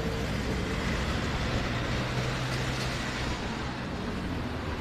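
Road traffic: a motor vehicle's engine running with a steady low hum over general traffic noise.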